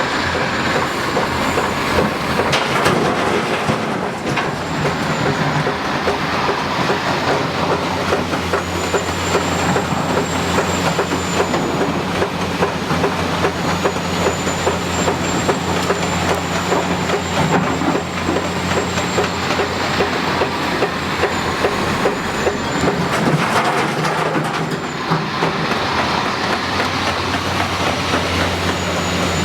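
Hitachi 330 crawler excavator's diesel engine running steadily under a dense metallic clanking and rattling, typical of its steel crawler tracks working over rock. A thin high squeal comes and goes on top, longest through the middle and again near the end.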